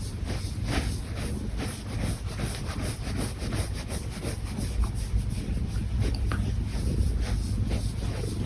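Sleeping domestic cat snoring with a high-pitched snore, heard as a few faint short squeaks over a steady low rumble.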